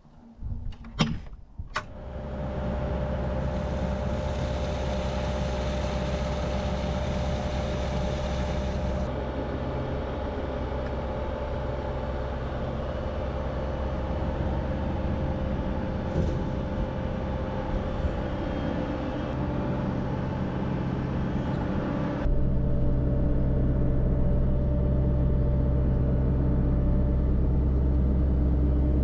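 A few sharp clicks, then the diesel engine of a Cat 304 mini excavator comes up and runs steadily. About 22 seconds in it gets louder and deeper.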